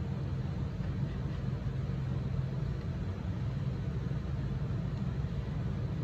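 Steady low rumble with no sneeze, breath or other distinct sound standing out.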